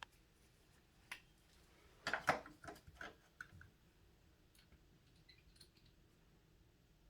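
A few light clicks and taps from hardware being handled while mounting blind brackets: one click about a second in, then a quick cluster of them about two to three and a half seconds in.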